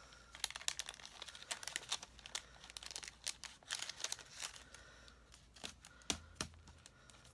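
A clear plastic cellophane packet of planner stickers being handled and opened, crinkling with many small irregular crackles, busier in the first few seconds.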